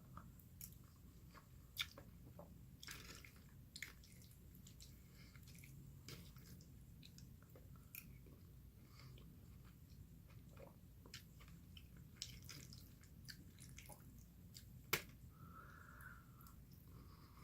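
Quiet close-miked chewing and eating mouth sounds: wet smacks and scattered sharp clicks, the loudest a little before the end.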